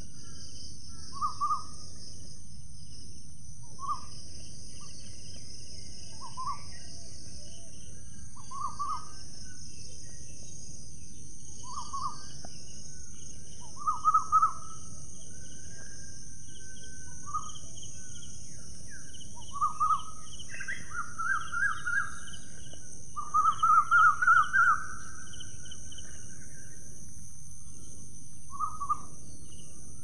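Indian ringneck parakeets calling in short single calls about every two seconds, breaking into quicker runs of calls around the middle and again, loudest, about three-quarters of the way through. A steady high hiss and a low rumble run beneath the calls.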